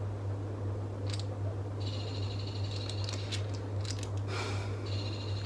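Steady low hum, with a few faint clicks of tripod parts being handled and an intermittent high buzzing chirp that stops and starts.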